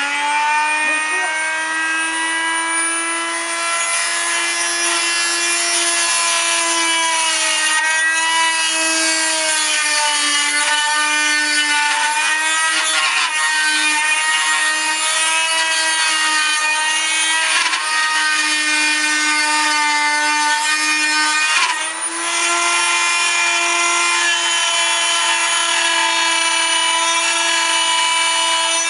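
Electric motor of a homemade table-mounted grinding rig running at high speed with a steady whine, while small flat metal pieces are pressed against the grinding bit to smooth them. The pitch wavers slightly under the load and briefly dips about three quarters of the way through.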